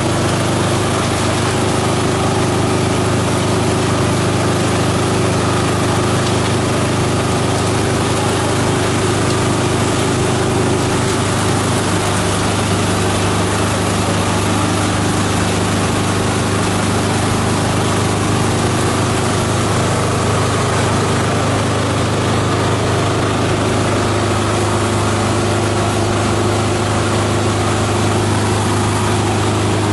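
Chopper-shredder machine running steadily, a constant low hum with a few steady higher tones over it.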